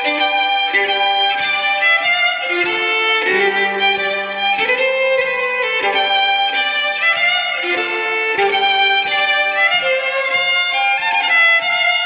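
Solo fiddle playing a lively Scottish fiddle tune, the notes changing quickly, with double stops. A low drone note sounds under the melody for several seconds in the middle.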